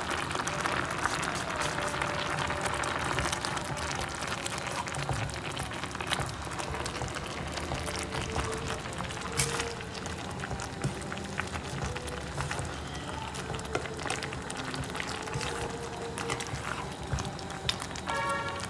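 Carrot halwa (grated carrot in milk and sugar) bubbling thickly in a frying pan while a wooden spatula stirs and scrapes through it, with many small pops and clicks. Soft music plays underneath.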